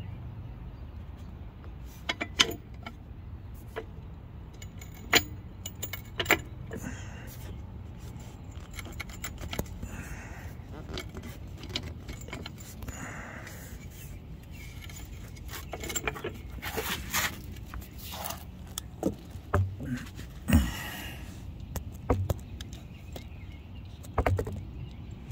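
Scattered metal clinks and knocks from a floor jack being handled and positioned under a car's jack point, over a steady low rumble.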